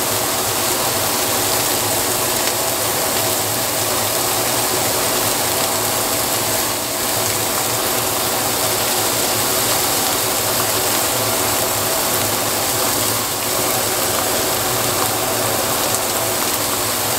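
Ground-beef burger patties and bacon strips frying on a hot griddle: a steady sizzle.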